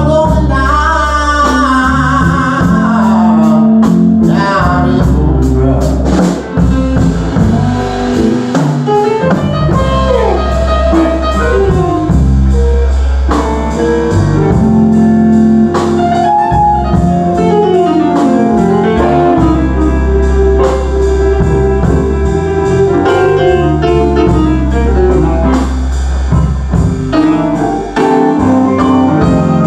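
A live band jamming in a blues-rock style, with bass and drums under a lead line of gliding, bending notes.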